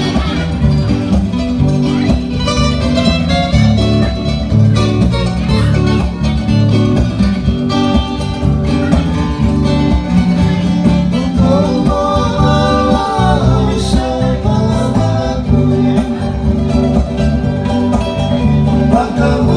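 Fijian string band playing: several acoustic guitars strummed in a steady rhythm, with men's voices singing over them.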